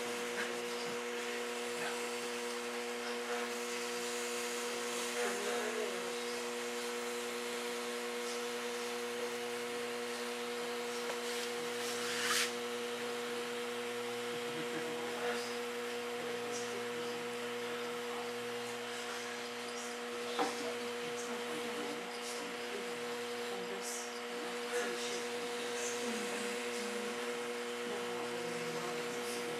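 A steady machine hum made of several fixed tones, with a few light taps and scrapes, one a little louder about twelve seconds in and another about twenty seconds in.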